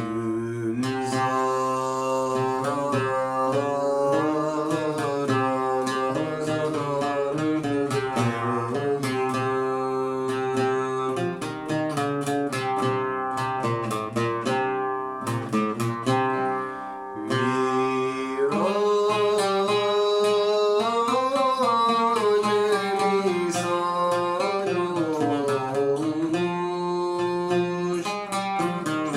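Turkish art song (şarkı) in makam uşşak: a solo voice sings long, gliding melodic lines over a plucked string instrument, with a short dip in the middle.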